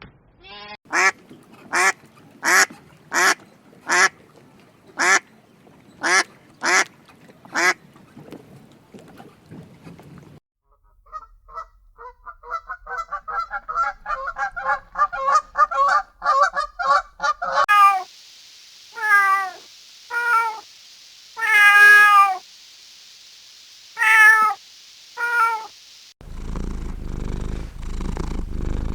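A sequence of animal calls: about nine short calls evenly spaced, then a quick chattering run, then several longer calls that waver in pitch. A cat's steady purring starts near the end.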